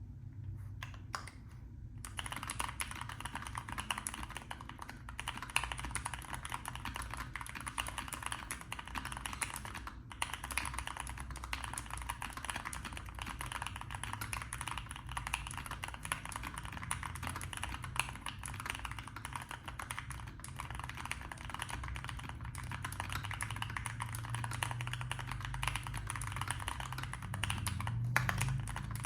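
Keychron Q1 V2 mechanical keyboard with Gateron Black linear switches, tape-modded and force-break-modded, being typed on: a few single keystrokes, then fast continuous typing from about two seconds in.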